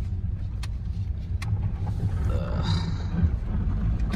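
Steady low rumble of a car's engine and road noise heard inside the cabin while driving, with a couple of faint clicks in the first second and a half.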